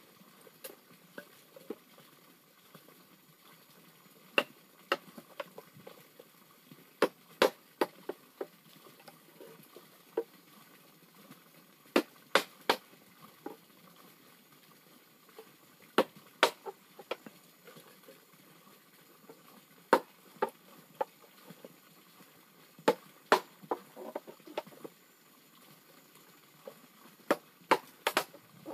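Machete blade driven into a bamboo pole by blows from a wooden club: sharp knocks at irregular intervals, often two or three in quick succession.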